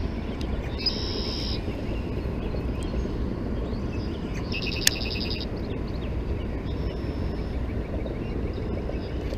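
Steady low outdoor background noise, with two short high bird trills, one about a second in and one near the middle, and a single sharp click during the second.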